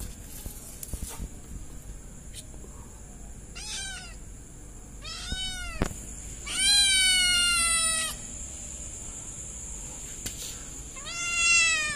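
Kitten meowing four times in high, rising-and-falling calls. The third call, about seven seconds in, is the longest and loudest.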